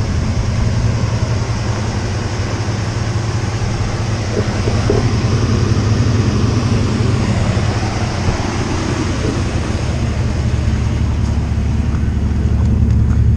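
Steady, loud drone of a vehicle engine and road noise, with a low hum, running without change until it cuts off suddenly at the very end.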